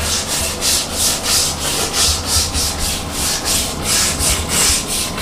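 Hand scrub brush scrubbing bathroom tiles back and forth, a steady rhythm of about three strokes a second, working at hard-water deposits.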